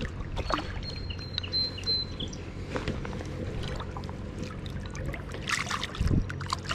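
Creek water splashing and swirling around a landing net held in the stream with a small fish in it, with scattered splashes and clicks that come thickest about five and a half seconds in. A thin, high, broken whistle sounds briefly in the first two seconds.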